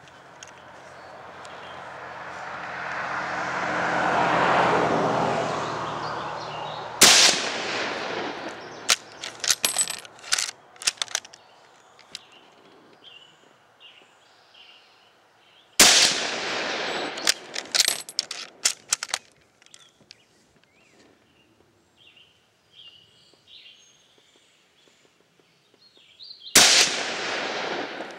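Three rifle shots from a Turkish Mauser bolt-action in 8mm Mauser, roughly nine to ten seconds apart, each followed by a flurry of quieter clicks and knocks. Before the first shot, a low rumble swells and then fades over several seconds.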